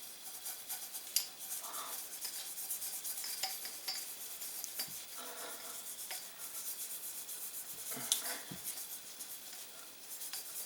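Toothbrush bristles scrubbing the inside of a metal suppressor tube as it is turned, a fast, continuous scratchy brushing, with a couple of sharp metal clicks about a second in and again near the end.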